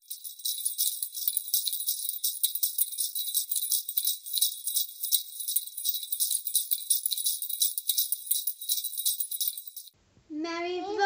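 Sleigh bells jingling in a quick, continuous shake, stopping about ten seconds in. Just before the end, voices start singing.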